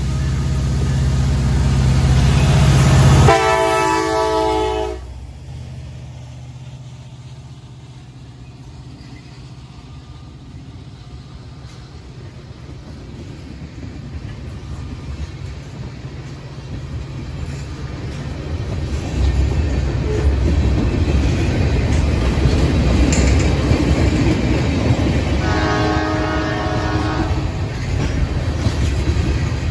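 Norfolk Southern diesel freight locomotives run up with a heavy engine rumble and sound a chord air horn a few seconds in. Loaded tank cars follow, their wheels rolling and clicking over the rails and growing louder. Near the end the horn sounds again, fainter.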